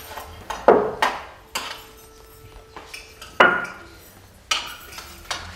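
Metal pots, jugs and dishes clanking as they are handled on a table. There are about five sharp knocks, each ringing briefly, and the loudest come near the start and about halfway through.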